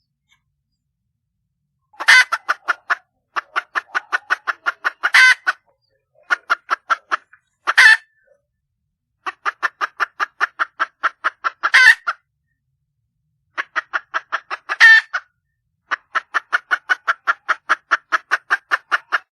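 Red junglefowl hen calling in bouts of rapid clucks, about six or seven a second, each bout carrying one louder, drawn-out squawk. Six such bouts start about two seconds in, with short pauses between them. The uploader takes it for a hen calling for a mate.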